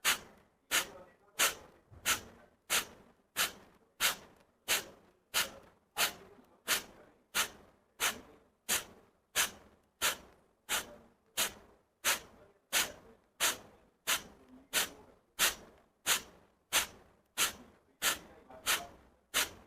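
Kapalabhati breathing: a steady series of sharp, forceful exhalations through the nose, about three every two seconds, with near quiet between strokes.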